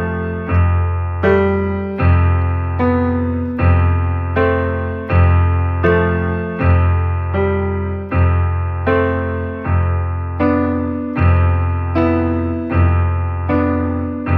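Piano-voiced keyboard playing a slow instrumental introduction: soft chords struck at an even pace, roughly four every three seconds, each ringing and fading over a low bass note.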